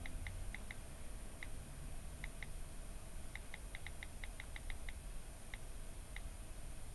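iPhone on-screen keyboard key-click sounds as text is typed: a string of short, sharp ticks, some in quick runs of several a second and others spaced out with pauses between.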